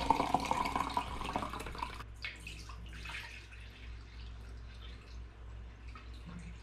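Liquid poured out of a plastic film developing tank into a glass beaker: a splashing stream that fades away about two seconds in. After that, a thinner, quieter stream of liquid poured from a plastic chemical bottle into a glass measuring jug.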